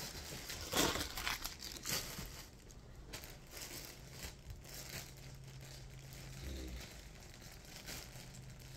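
Packaging bag being torn and crinkled open by hand, with sharp crackles loudest in the first two seconds and lighter rustling after.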